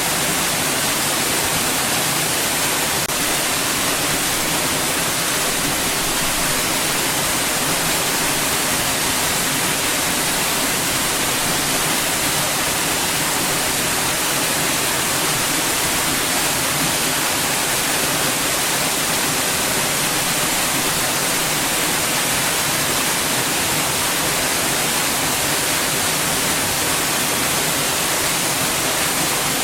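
Steady white noise: an even, unchanging hiss across the whole range, bright in the highs.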